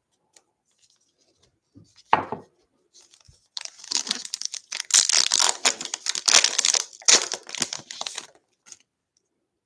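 Foil trading-card pack wrapper crinkling and tearing open by hand: a short rustle about two seconds in, then several seconds of dense crackling as the foil is ripped apart.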